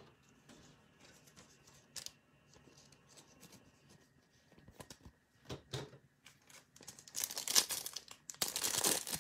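Foil wrapper of a Topps Chrome baseball card pack being opened with scissors, crinkling and tearing. A few faint clicks and handling noises come first, and the loud crinkling starts about seven seconds in.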